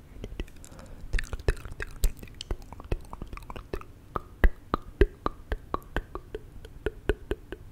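Close-up ASMR mouth sounds into a foam-covered microphone: a string of irregular wet clicks and pops, some with short squeaky chirps between them.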